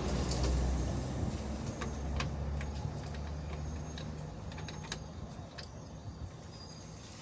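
A low vehicle engine rumble that slowly fades away, with a few scattered sharp metallic clicks from pliers working on the car's engine cooling fan.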